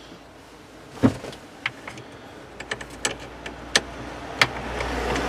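Scattered sharp clicks and clacks of a clamp being handled and fitted onto a car battery terminal, about a second in and then several more a second apart, over a low hum that builds through the second half.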